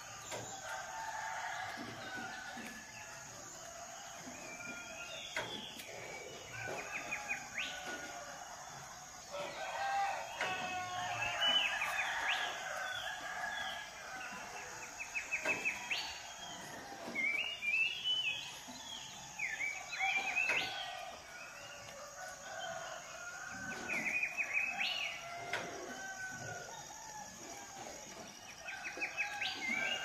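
A rooster crowing among many small birds chirping and singing. Some of the birds give short rapid trills that recur every few seconds, over a faint steady high-pitched hum.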